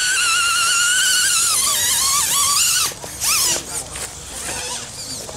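Electric drive motor and gears of an RC rock crawler whining under throttle as it crawls over logs, the pitch wavering with the throttle. It cuts out about three seconds in, and a short burst of whine falling in pitch follows.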